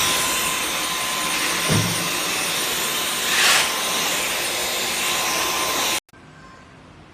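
Dyson V12 Detect Slim cordless stick vacuum running with a steady whine over a rush of air. There is a low bump about two seconds in and a brief louder rush around three and a half seconds. The sound cuts off suddenly about six seconds in, leaving a faint hiss.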